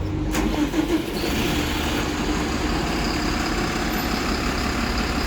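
Bus engine running steadily close by, a low rumble with a steady hum, joined by a wider mechanical noise about a second in.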